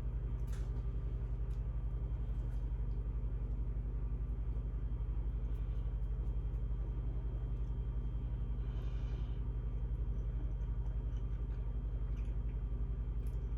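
A steady low hum with a fast, even pulsing, and a few faint clicks.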